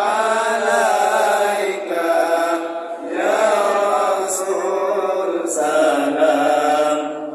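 A single man's voice chanting a prayer recitation in long, drawn-out melodic phrases, breaking for breath about three seconds in.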